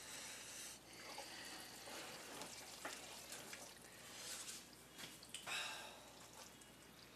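Faint light clicks and taps of hands and a utensil working at a cooking pot, over a low watery bubbling or hiss.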